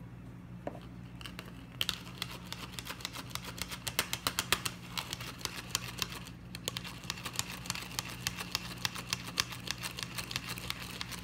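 A small wire whisk clicking and rattling against the sides of a plastic container as it stirs a little oil and food colouring, in quick strokes. The clicks start about two seconds in and break off briefly just past the middle, over a faint steady hum.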